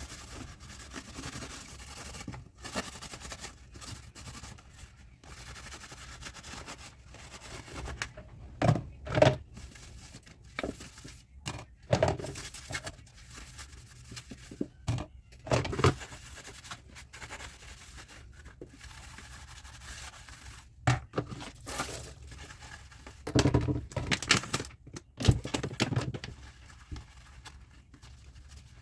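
Dishes and utensils being handled and washed by hand at a sink: irregular knocks, clinks and scrapes, with clusters of louder knocks at several points.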